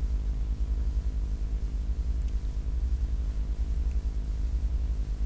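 A steady low electrical or fan-like hum with faint hiss: the recording's background noise, with no other events.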